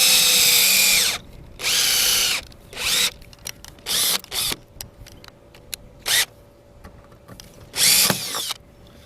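Power drill boring a hole, run in bursts: a long run that winds down in pitch and stops about a second in, then about five shorter bursts, the last near the end.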